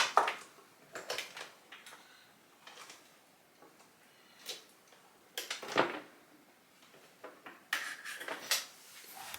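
Cables and plastic connectors being handled and plugged in: scattered light clicks and knocks, a small cluster of rattles about halfway through, and a longer rustle near the end.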